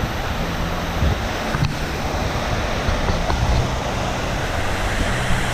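Steady rushing of water, with wind noise on the microphone.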